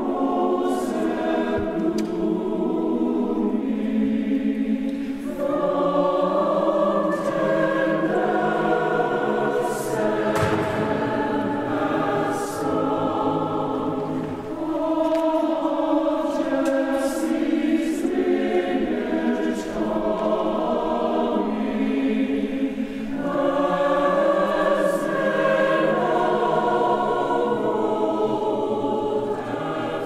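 Large mixed choir singing in harmony, in sustained phrases a few seconds long with brief breaks between them.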